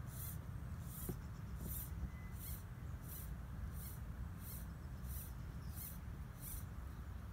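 Steady low wind rumble on the microphone, with a faint high-pitched chirp repeating regularly about every two-thirds of a second.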